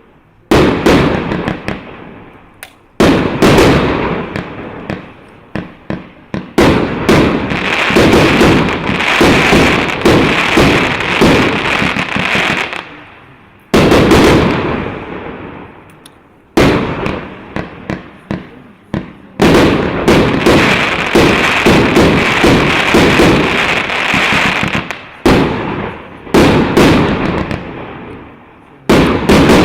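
A 200-shot fireworks battery with 1.25-inch (32 mm) shells firing: rapid sharp reports of launches and shell bursts come in loud waves, with short lulls between them.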